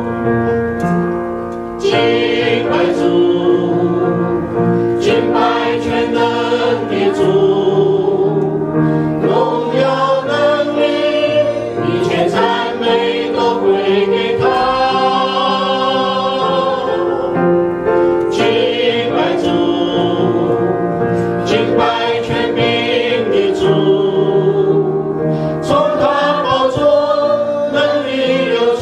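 A small mixed group of men's and women's voices singing a Chinese praise song together into microphones, with upright piano accompaniment. The singing is sustained and in phrases of a few seconds.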